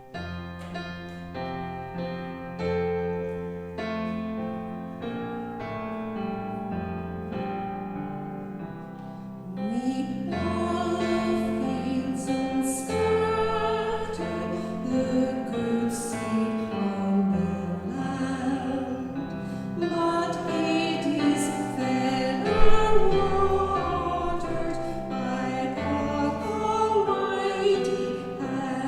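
An instrumental introduction of held chords. About ten seconds in, a singing voice enters over the accompaniment and carries on with the song.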